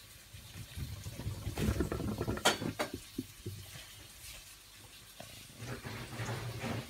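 Water draining and dripping from freshly drained spaghetti in a stainless steel colander in a sink, with two sharp knocks about two and a half seconds in, over a low steady hum.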